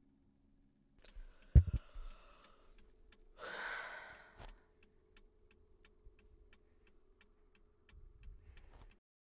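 A low thump, then a woman's long heavy sigh, followed by a faint steady ticking about three times a second inside the stopped car.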